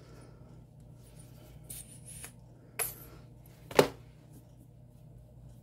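Two sharp plastic clicks about a second apart, the second louder, with faint rustles of handling before them: a plastic lotion tube's cap being opened and handled.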